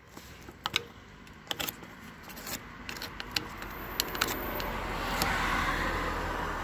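Sharp metallic clicks and clinks of a flat-blade screwdriver against the worm-drive hose clamp on a hydraulic cylinder's rubber bellows. About four seconds in, a rushing noise with a low rumble swells up and then eases off.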